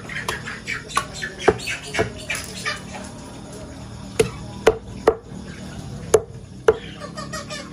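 Meat cleaver chopping raw chicken on a wooden chopping block: about eight sharp chops. The loudest come in a run roughly half a second apart in the second half.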